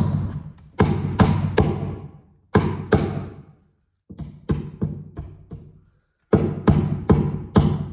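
Hammer driving cable staples to fasten electrical cable to wood framing: groups of three or four sharp blows with a brief low ring after each, with short pauses between the groups.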